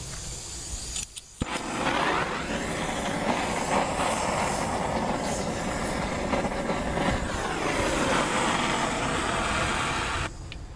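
Paper and oil catching fire in the open oil tray of a homemade waste-oil heater, the flames making a loud, steady rushing noise. It starts suddenly about a second and a half in and cuts off suddenly near the end.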